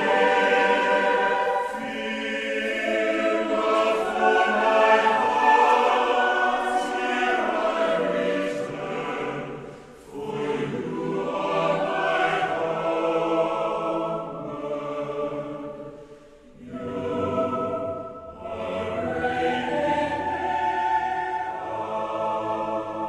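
Background music of a choir singing long, sustained phrases, with short breaks about ten and sixteen seconds in.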